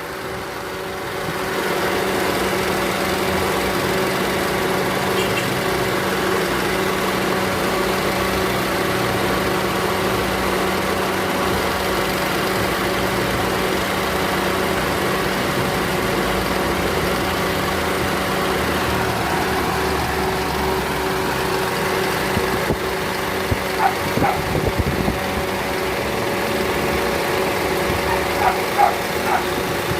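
Mitsubishi Lancer four-cylinder engine idling steadily, a little louder about a second and a half in. It is idling with a shake from a misfire that the mechanic takes to be electrical rather than a vacuum leak.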